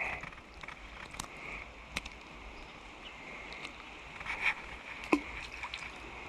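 Creek water running steadily over the stream bed, with scattered light ticks and one sharp short sound about five seconds in.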